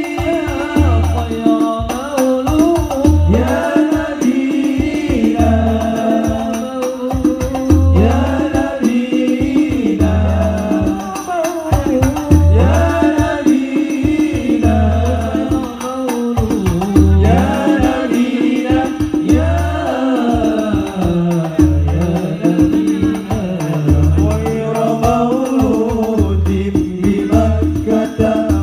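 Live hadrah: men singing an Islamic devotional song (sholawat) in a sung melody with group voices, accompanied by hand-played rebana frame drums with jingling percussion. A deep beat falls about every second and a half under the voices.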